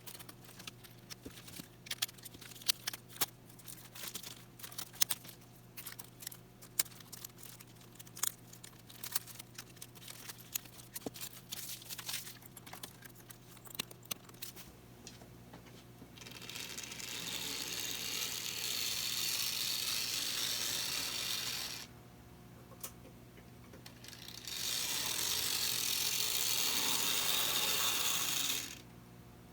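Shrink wrap pulled off and the model handled: a string of crinkles and clicks. Then the small motor and gears of a Tyco HO scale steam locomotive running on the track: a steady whir for about five seconds, stopping, then running again for about four seconds. The locomotive is running straight out of its shrink wrap.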